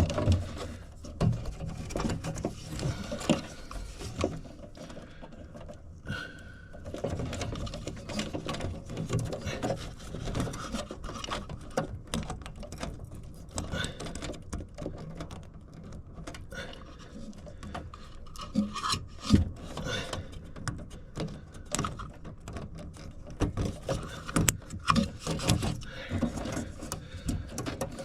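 Hands and tools working on a furnace: irregular rubbing and scraping, with scattered clicks and knocks.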